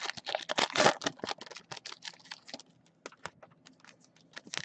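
Foil trading-card packs and stiff chromium cards being handled: quick clicking and rustling for about the first second and a half, then scattered single taps as cards are stacked.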